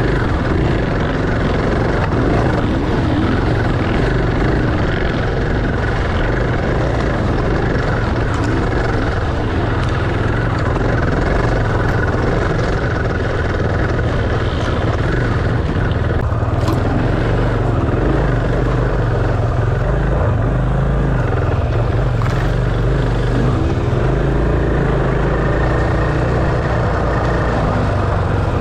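Enduro motorcycle engine running continuously under varying throttle, its pitch wavering up and down, over a heavy low rumble.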